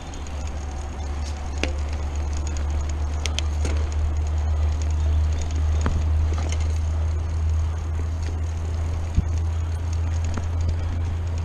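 Wind buffeting a chest-mounted action camera's microphone as a mountain bike rides downhill, a low rumble that grows louder over the first couple of seconds as speed builds. Scattered clicks and rattles from the bike over bumps in the dirt.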